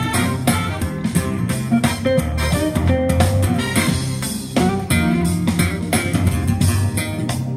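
Guitar-led music with bass guitar and a steady beat, played through a Marshall Emberton II portable Bluetooth speaker.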